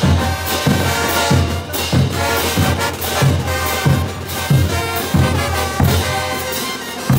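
Bolivian brass band playing a morenada live: massed trumpets, baritones and sousaphones carry the tune over a steady beat of bass drums, snare drums and clashing crash cymbals.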